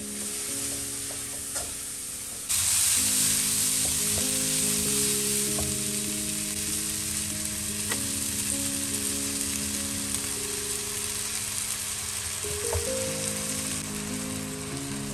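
Sliced chillies, shallots, garlic and onion sizzling in hot oil in a non-stick wok, stirred with a spatula with a few light scrapes. The sizzling gets suddenly louder about two and a half seconds in, over soft background music.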